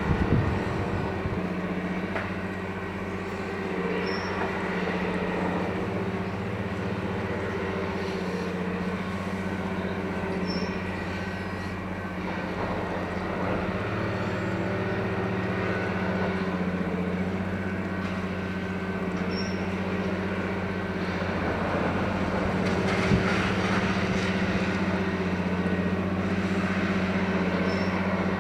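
Engine of a rail track maintenance machine running steadily with a constant low hum. There is a brief louder burst right at the start and a single sharp knock about 23 seconds in.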